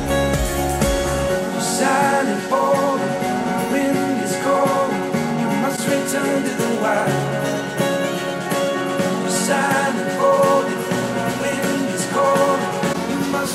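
Music played back through a pair of Focal Alpha 80 studio monitors and then, from about halfway on, through a pair of Kali Audio LP-8 monitors, recorded by a microphone in the room. The deep bass drops out a little over a second in.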